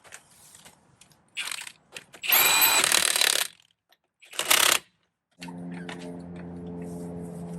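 Impact wrench run in three short bursts with a whine, the middle one about a second long and the loudest. A steady low hum starts near the end.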